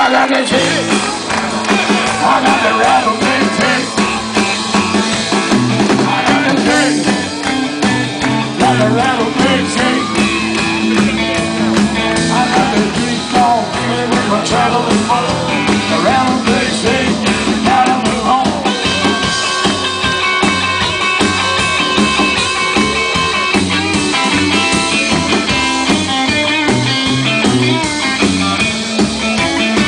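Live blues-rock band playing an instrumental passage: electric guitar lines bending over bass guitar and a drum kit, steady and loud throughout.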